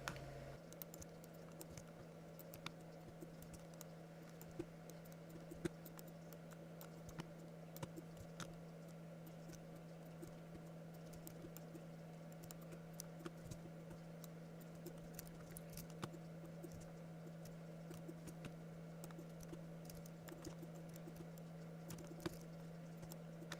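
Faint, scattered clicks of a computer keyboard and mouse being worked, one every second or so, over a steady low electrical hum.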